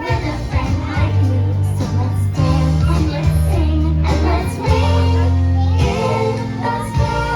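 Young children singing an English song together over accompanying music with sustained bass notes.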